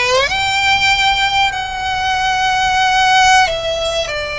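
Solo violin playing slow held notes: a slide up into a long sustained note, then two shorter notes stepping down near the end.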